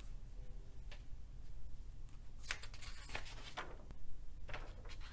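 Sheets of paper being handled: four short rustles and scrapes in the second half, over a low steady hum.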